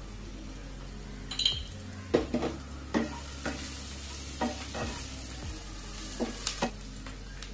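Wooden spatula stirring onions and spice powders frying in a wok, scraping and knocking against the pan about nine times over a quiet, steady sizzle.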